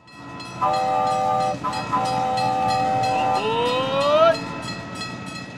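Train running with a rhythmic clack of about four beats a second, its multi-tone horn sounding in two long blasts, then a rising tone near four seconds in.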